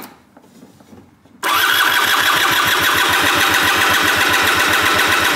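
A Piaggio SKR 125 scooter engine is cranked by its starter motor with the spark plug out and a compression gauge in the plug hole. It starts about a second and a half in, as a steady whirring with a fast, even beat of compression strokes, and does not fire. It is a compression test, and it builds to 10 bar, which counts as optimal.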